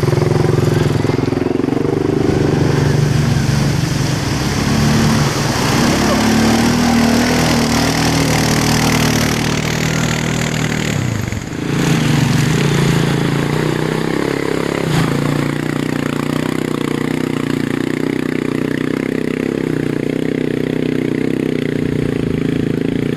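Polaris 850 XP ATV engine running under way, its revs rising and falling, easing off briefly about halfway through, then holding steady.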